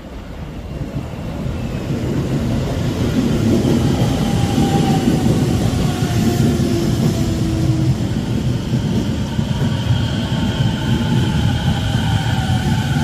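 Electric commuter train on the Keio Sagamihara Line running through the station: the rumble of the train builds over the first few seconds and then holds loud, with a motor whine that falls slowly in pitch.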